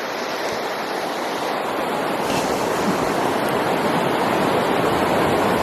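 River water rushing over rocks, a steady noise that grows gradually louder.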